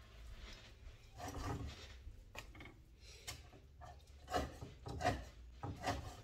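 Cleaver chopping and mincing raw meat on a wooden chopping block: a run of dull knocks about once a second, the strongest about four and five seconds in.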